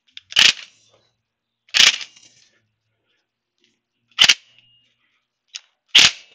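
Cordless impact wrench hammering on the primary-drive sprocket nut in four short bursts, about a second and a half apart, used in place of a sprocket-holding tool to break the nut loose.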